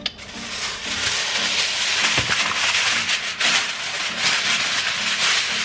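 A sheet of aluminum foil crinkling and rustling as it is handled and spread over a roasting pan, the rustle building over the first second and going on steadily.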